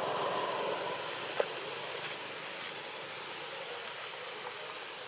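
Steady outdoor background hiss, with one short click about a second and a half in.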